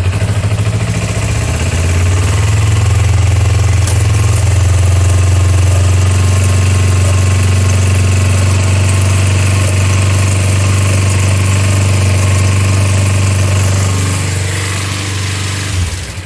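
Kawasaki Ninja 250's parallel-twin engine running steadily after starting, then shutting off near the end.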